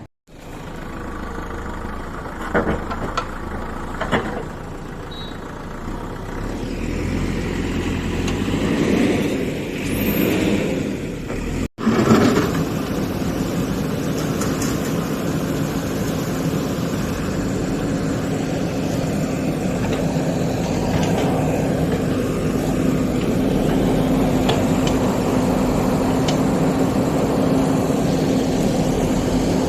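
Backhoe loader's diesel engine running steadily, with a few sharp knocks in the first few seconds. There is a brief dropout about halfway, after which the engine runs on with an even hum.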